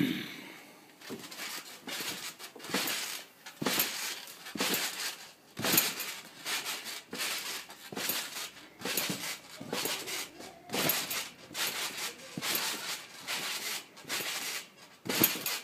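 Trampoline being bounced on: the mat and its metal springs sounding with each landing in a steady rhythm.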